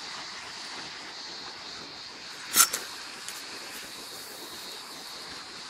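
Steady outdoor hiss with one sharp stone-on-stone clack about halfway through, and a couple of faint knocks just after: hot stones being set over a leaf-wrapped chicken in a cooking pit.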